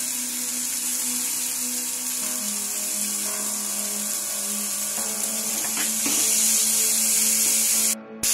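Chopped tomatoes and onions sizzling in hot oil in a kadai, turned with a steel spatula, under soft instrumental background music. The sizzle grows louder about six seconds in, and all sound drops out for a moment near the end.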